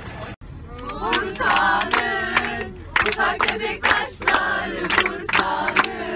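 A group of teenage girls singing and shouting together, clapping their hands in rhythm, about three claps a second, inside a minibus.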